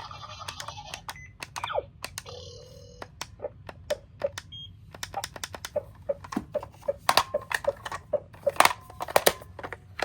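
Small die-cast toy cars clicking and clattering, with sharp clicks coming thicker in the second half.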